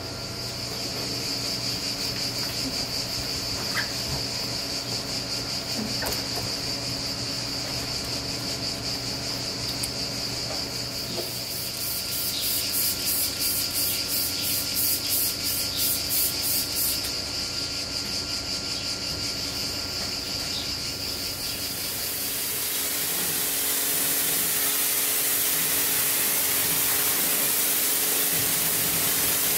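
A steady high-pitched whine over a low machine hum, with a quick run of trigger-sprayer squirts in the middle. About two-thirds of the way in, a pressure washer's water jet starts, hissing loudly and steadily as it rinses down the car.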